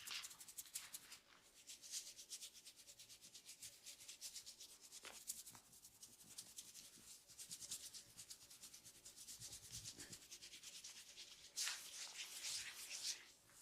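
Fingers rubbing and scratching a man's hair and scalp in a head massage: fast, even, faint strokes, growing louder and rougher near the end.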